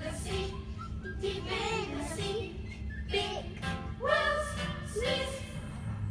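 Children singing a song, in short phrases over a steady low hum.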